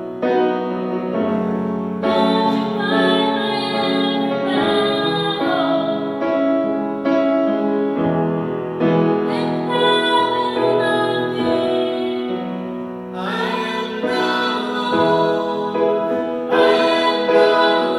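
Music: a woman singing with piano accompaniment.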